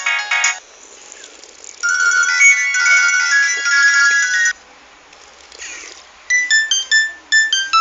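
Nokia 100 mobile phone ringtones playing in turn. One tune ends just after the start; a short multi-note melody plays for about three seconds. After a pause, a run of short stepping electronic beep notes begins near the end.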